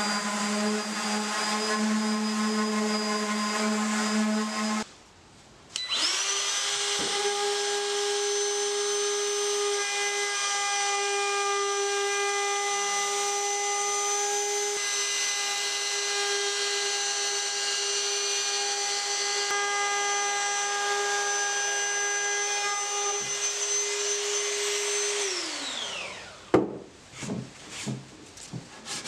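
DeWalt random orbit sander running on the wooden tray for the first few seconds, then a Ryobi trim router running at a steady high pitch as it routes the edge of the tray top. Near the end the router's pitch falls away as it winds down, followed by a few sharp knocks.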